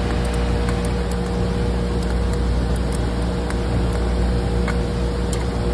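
Steady mechanical hum of running machinery, with a constant tone over a low rumble, and a few faint clicks.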